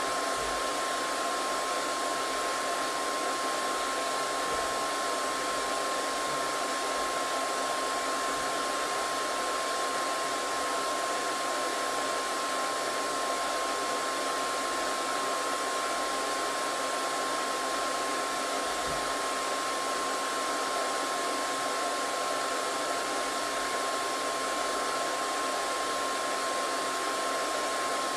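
Hair dryer running steadily: a constant rush of blown air with a steady whine through it.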